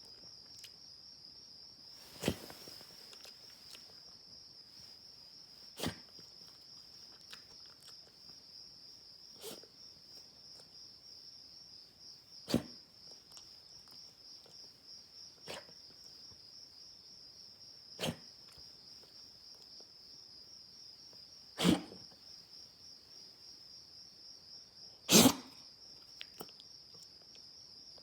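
Single short, harsh coughs, eight of them about every three to four seconds, the last two the loudest. Behind them, insects chirr steadily at a high pitch.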